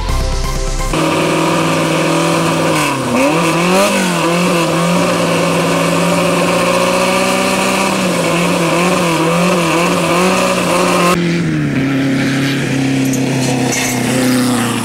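BMW M3 rally car's four-cylinder engine running stationary at a fast idle, the revs rising and falling a few times under short throttle blips. About eleven seconds in, a different rally car's engine takes over with a lower, steady note.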